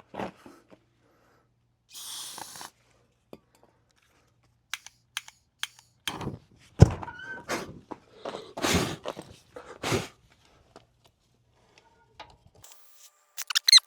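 A brief hiss of carb cleaner sprayed from an aerosol can about two seconds in, then scattered knocks and thuds, the loudest a sharp low thump about seven seconds in, while a small-engine tire is being worked back onto its bead.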